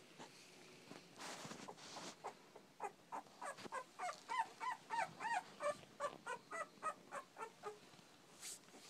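Two-week-old pit bull puppies whimpering and squealing: a rapid run of short, high cries, each rising and falling in pitch, about three a second, starting about three seconds in and stopping shortly before the end.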